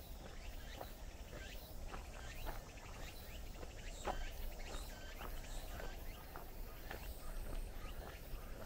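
Footsteps walking at an even pace on a paved path, about two steps a second, with faint bird chirps.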